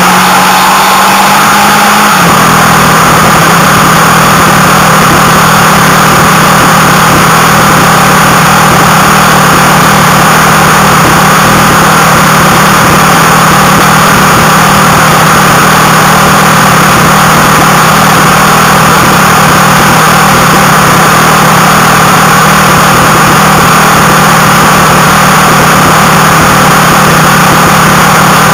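Motorcycle engine running at a steady cruise under a loud, even rush of wind noise; the engine note drops slightly about two seconds in and then holds steady.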